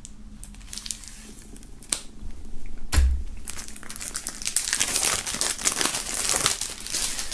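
Plastic shrink-wrap film being cut open and pulled off a CD digipak, crinkling. There is a single knock about three seconds in, and the crinkling grows dense over the last three seconds.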